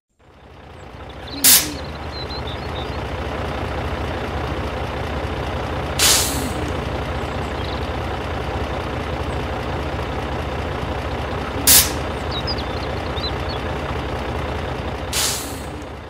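Heavy truck engine running steadily, fading in at the start, with four short air-brake hisses spread a few seconds apart.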